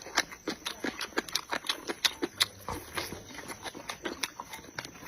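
Close-up chewing of crunchy pickled radish strips: a quick, irregular run of crisp crunches and wet mouth clicks.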